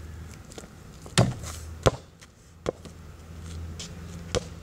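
An underinflated basketball bouncing on pavement: four dull thuds, the loudest about a second in, another soon after and two fainter ones later. The ball is soft and gives a poor, dead bounce.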